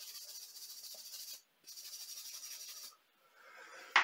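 Wire brush scrubbing rust off the steel jaws of a pair of pliers, a fast steady hissing scrape. It breaks off briefly about a second and a half in, resumes, and stops near the three-second mark.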